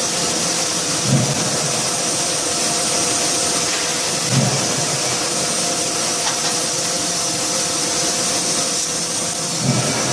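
Steady hum and hiss of a fully hydraulic closed die forging hammer standing by with its ram raised, between blows. Three dull low thumps come through it, about a second in, near the middle, and near the end.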